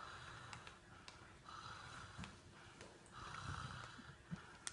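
Faint breathing sounds: three short, hushed breaths about a second and a half apart, with a few small clicks.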